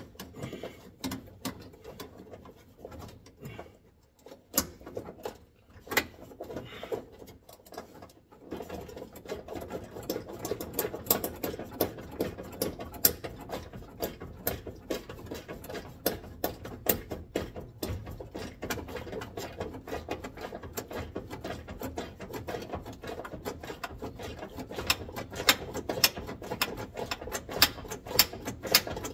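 Small stubby ratchet wrench clicking as it backs out door hinge bolts: scattered clicks at first, then steady fast ratcheting from about eight seconds in.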